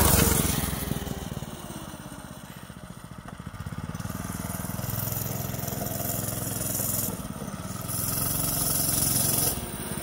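TrailMaster Storm 200 mini bike's 196cc single-cylinder four-stroke engine running as the bike rides past, growing fainter as it moves off down the road, then louder again as it comes back. The engine is brand new and not yet broken in.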